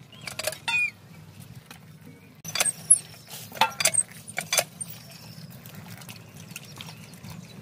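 Steel bowl and plate clinking and knocking against each other and the stone slab as small fish are washed by hand. A few sharp clinks come about half a second in, then a run of them between about two and a half and four and a half seconds in.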